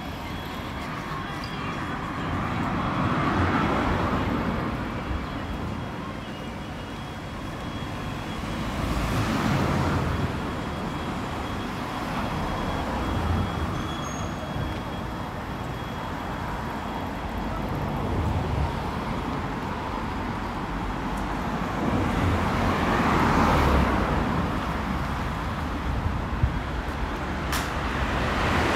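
Road traffic: vehicles passing one after another, the noise swelling and fading several times.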